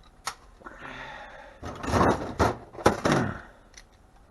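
Knocks and rattling clatter of microwave parts being handled and pulled apart, loudest in a cluster of sharp knocks about two to three seconds in.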